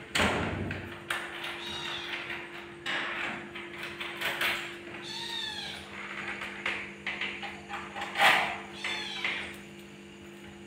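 Kitten mewing, several short rising-and-falling meows, amid knocks and scuffs. The loudest are a thump right at the start and a sharp sound about eight seconds in. A steady low hum runs underneath.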